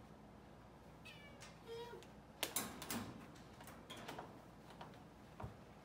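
Kitten giving two short, high mews about a second in, then a run of sharp clicks and rattles on the steel kennel bars as it paws and climbs at a hand, the loudest knock near the middle.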